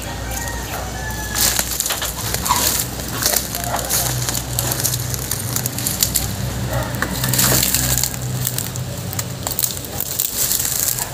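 Debris being shifted during a search: irregular crunching, cracking and clattering, with several sharper knocks throughout.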